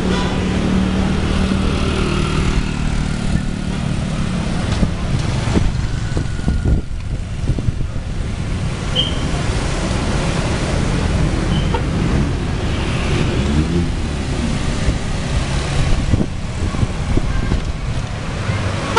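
Street traffic of motorbikes and cars passing close by, with an engine hum early on and a motorbike engine sweeping in pitch as it goes by, over a steady low wind rumble on the microphone.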